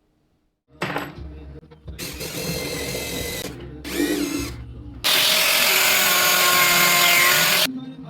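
Power tool motor running in several short bursts, one spinning up with a rising whine, then a longer run of about two and a half seconds.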